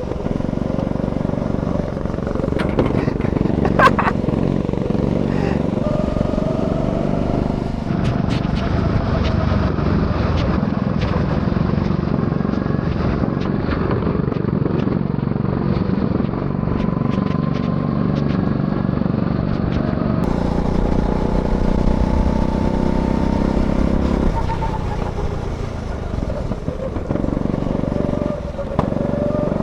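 Go-kart engine running under throttle on the track, its pitch rising and falling as it speeds up and slows for corners, easing off briefly near the end before picking up again.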